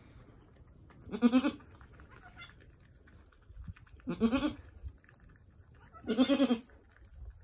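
Angora goat bleating three times during a kidding, each call a wavering bleat of about half a second, the second and third a couple of seconds apart.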